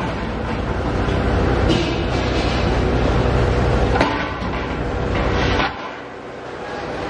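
Steady rumble of heavy factory machinery, with a sharp metallic knock about four seconds in as a steel cylinder body is handled. The rumble drops away suddenly near six seconds and then builds back up.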